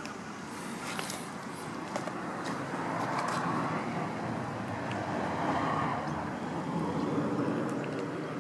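Road traffic going by, a wash of tyre and engine noise that swells twice as cars pass, with a few light clicks over it.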